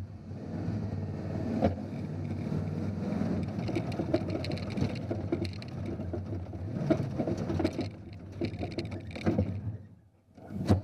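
Onboard sound of an RC scale crawler truck climbing a rocky line: its motor and gears hum steadily, with scattered clicks and scrapes from the tyres and chassis on rock. The sound drops away almost to nothing about ten seconds in, then there is a sharp knock.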